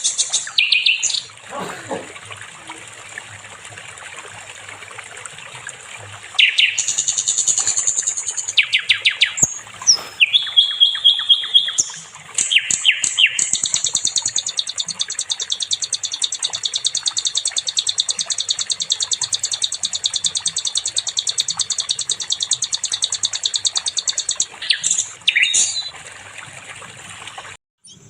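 Songbird, the sikatan londo flycatcher, singing fast, repeated chirps and high trills, then one long, rapid trill of about ten seconds. The song cuts out briefly near the end.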